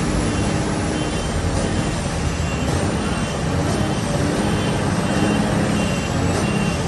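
A vehicle engine running steadily, with a short high beep repeating about once a second.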